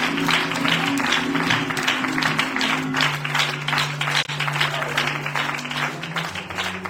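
Congregation clapping in praise over sustained low instrumental chords, the clapping thinning out near the end.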